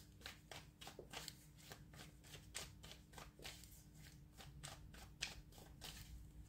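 Faint, irregular light clicks of a tarot deck being shuffled by hand, several a second.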